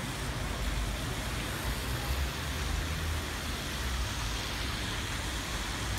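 City buses passing on a wet street, a steady low engine rumble under an even hiss of traffic and tyres on the wet road.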